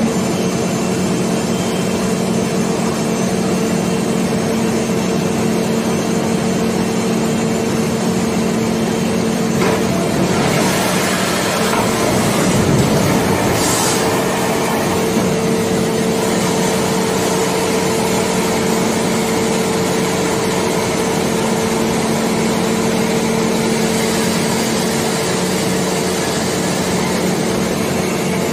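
Steady mechanical hum with a low drone from the hydraulic equipment working an Airbus A380's landing gear during a retraction test. It turns rougher about a third of the way in, with a short hiss about halfway, while the gear doors open and the gear begins to fold up.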